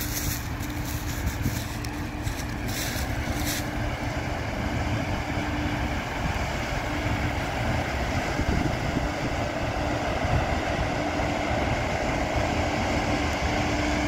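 Combine harvester running as it harvests corn, a steady engine drone that grows slowly louder as the machine comes closer. Wind buffets the microphone in the first few seconds.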